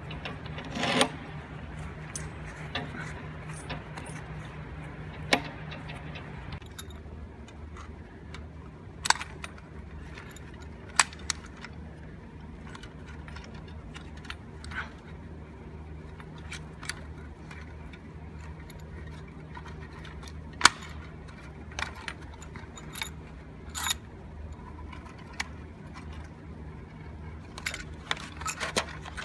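Metal tools and steel wire rope being handled: scattered sharp metallic clinks and rattles as a cable grip and a hand-operated swaging tool are worked onto the cable, over a steady low hum.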